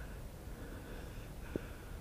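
A person breathing heavily and rhythmically close to the microphone, about one breath a second, with a single short knock about one and a half seconds in.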